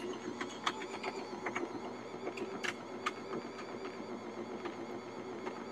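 Bosch stand mixer running, mixing a stiff peppermint-patty candy dough: a steady motor hum with irregular light clicks and knocks.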